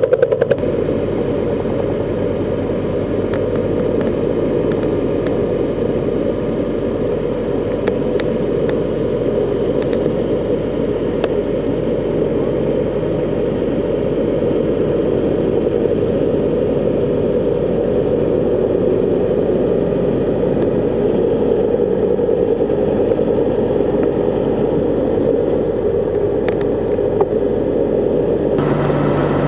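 A steady engine drone with a few faint clicks.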